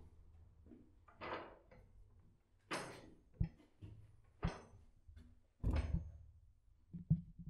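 A wooden cell door with an iron hook latch being handled and opened: a few short scrapes about a second or more apart, with several sharp knocks among them.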